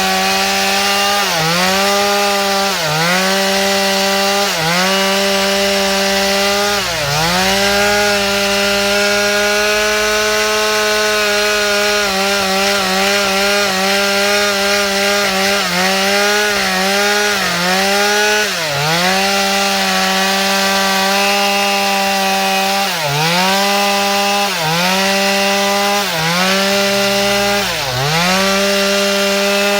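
Chainsaw cutting mango wood, the engine held at high revs. Its pitch dips sharply and recovers again and again as the chain bites into the wood, with a longer steady stretch midway.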